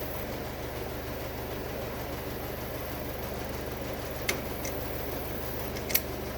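Steady low mechanical hum, with three short sharp clicks from a hand tool on the wire ends, about four, four and a half and six seconds in.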